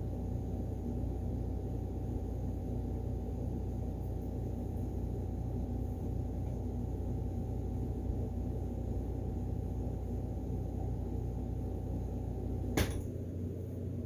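Steady electrical hum of a running appliance in the room, with one sharp click near the end as it switches off and the hum drops lower.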